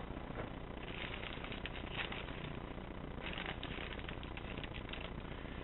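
Packaging rustling and clicking as a motherboard is lifted out of its box in its anti-static bag, in irregular bursts with small clicks.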